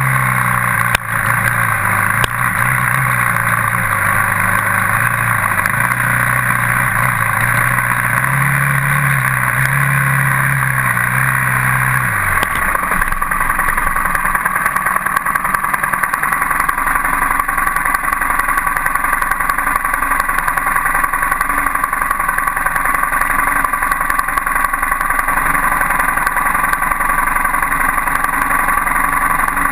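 Dirt bike engine running, its low note stepping up and down with the throttle, then gliding down and dropping away about twelve seconds in. A steady, loud, higher-pitched noise carries on throughout.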